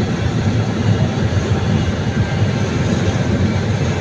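Large Sany hydraulic excavator's diesel engine running steadily and loudly under load as the machine works its boom and bucket, the sound weighted low.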